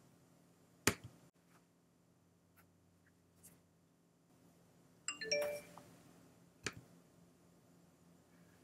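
Computer mouse clicks in a quiet room, with a short electronic alert chime of a few stepped notes a little past halfway.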